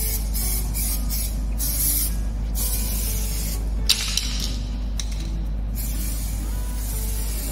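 Aerosol spray can of plastic texture coating hissing onto a plastic car bumper: a run of short spurts, a brief pause, then two longer sprays, with a couple of sharp clicks about four seconds in.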